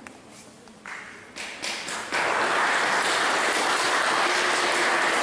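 Audience applause: a few scattered claps at first, then about two seconds in it swells into steady, full clapping in a large hall.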